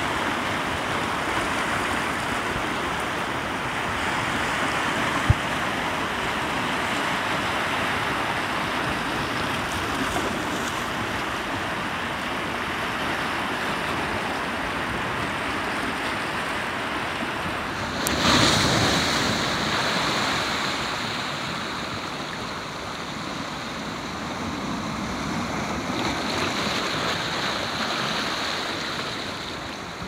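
Rough Sea of Japan surf breaking and washing over a rocky shore, a steady rush of churning water. A single sharp click comes about five seconds in, and a louder wave surge about eighteen seconds in.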